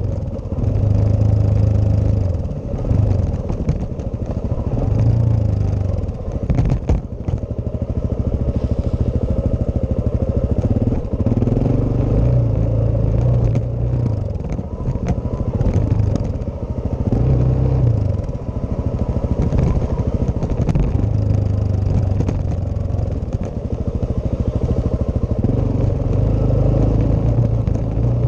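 Suzuki DR-Z400S's single-cylinder four-stroke engine running on the move, repeatedly pulling and easing off so its note rises and falls, with rattles and knocks from the bike over rough ground.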